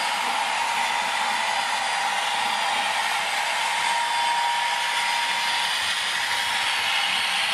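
Model diesel locomotive's sound decoder through its small built-in speaker: a steady, tinny hissing drone with no bass and a faint thin whine near 1 kHz.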